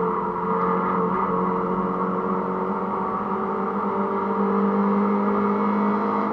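Mini Cooper S (R53) supercharged four-cylinder engine under load, holding a steady pitch with a slight rise, heard from inside the car.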